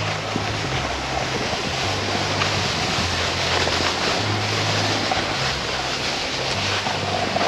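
Wind buffeting the microphone and a snowboard hissing over spring snow while riding downhill, a steady rushing noise with low, uneven rumbling.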